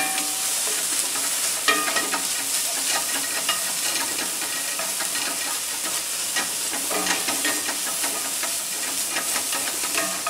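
Turkey bacon sizzling in a cast-iron skillet as it cooks until its fat is rendered out. A slotted spatula stirs and turns the pieces, scraping and clicking against the pan.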